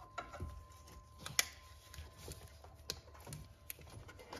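Scattered light clicks and taps, irregular and not a steady rhythm, as gloved hands work a ribbed serpentine belt off the engine pulleys. One sharper click comes about a second and a half in.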